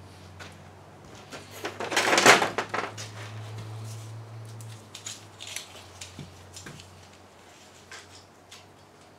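Workshop handling noise: tools and metal parts being picked up and moved. There is a burst of clattering and rustling about two seconds in, then scattered clicks and knocks, over a steady low hum.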